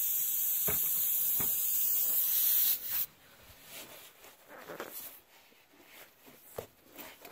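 Loud, steady hiss of air escaping through the puncture in a Can-Am Commander's rear tire, cutting off abruptly about three seconds in. After that come quieter short scraping and rubbing sounds as a tire-plug insertion tool pushes a rubber plug into the hole in the tread.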